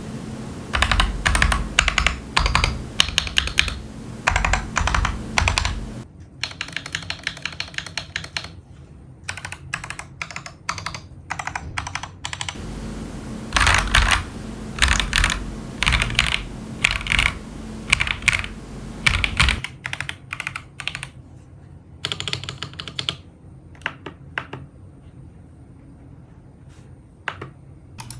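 Typing on a Feker IK75 Pro mechanical keyboard with stock Akko Jelly Black linear switches and Akko keycaps: two long runs of fast keystrokes, with slower, sparser and quieter key presses between them and near the end.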